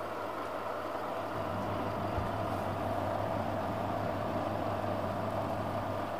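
Silvercrest tower fan running with its oscillation switched on: a steady whir of moving air and motor, with a low hum underneath. It is not a quiet fan.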